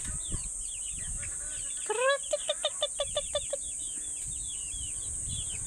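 A chicken lets out a rising call and then a rapid run of about eight clucks, roughly five a second, about two seconds in. Faint high chirping and a constant high hiss run underneath.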